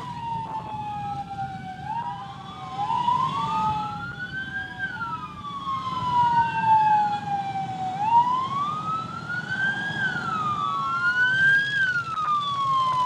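Two or more wailing sirens sound together out of step. Each slowly rises and falls in pitch every few seconds over the low, steady running of many motorcycle engines.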